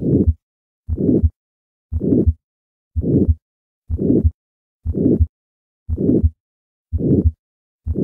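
Heart sounds heard through a stethoscope diaphragm at the second right intercostal space, about one beat a second. Each beat carries a harsh, crescendo-decrescendo systolic murmur, the murmur of aortic stenosis.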